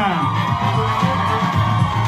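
Music playing through a club's PA, a steady bass pulse under a held high note, with an audience cheering and whooping.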